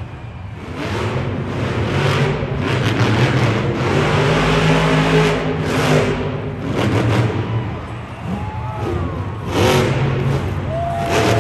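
Monster truck engine revving hard again and again during a freestyle run, the pitch surging up and falling back, loudest in the middle.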